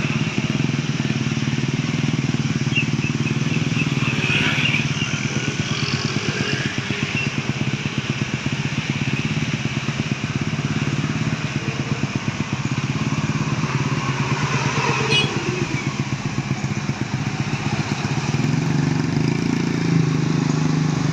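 A vehicle engine running steadily at an even pitch, growing slightly louder near the end.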